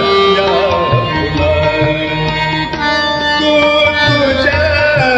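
Marathi bhavgeet: tabla keeping the beat under pitched melodic accompaniment, with a voice ornamenting a held note in the pause between sung lines.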